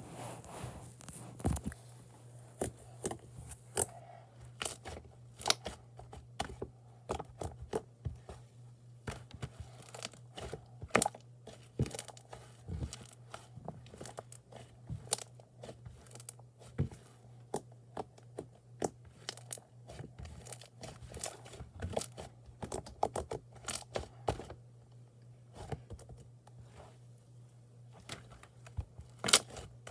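Slime being squeezed and stretched by hand, giving many sharp, irregular pops and clicks, several a second, with tearing sounds as it pulls apart. A faint steady low hum runs underneath.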